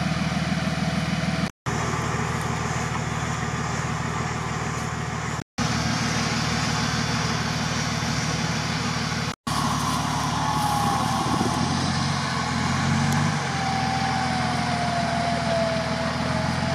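Short-wheelbase Nissan Patrol's engine running at a steady idle. About ten seconds in, a thin whine joins it and slowly falls in pitch. The sound cuts out briefly three times.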